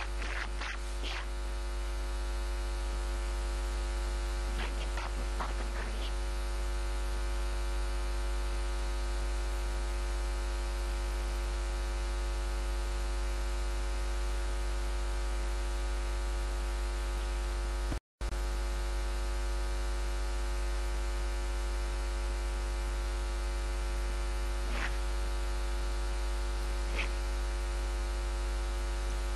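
Steady electrical mains hum with a buzz, with a few faint clicks, and a brief cut to silence about 18 seconds in.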